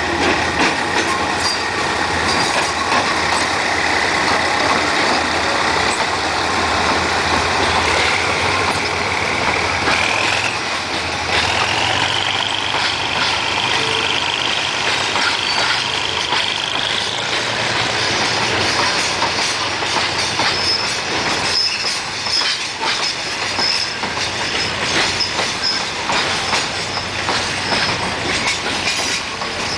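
Diesel-hauled freight train passing close by: the GEK-class diesel locomotive, then a long string of boxcars and container wagons rolling past with wheels clicking over the rail joints. A high whine climbs in steps during the first half.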